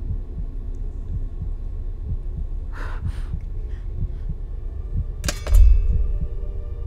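Soundtrack sound design: a low, fast heartbeat-like pulse, about two to three beats a second, with a brief breathy hiss about three seconds in. A little after five seconds a sharp hit lands with a heavy low boom and leaves a ringing tone hanging.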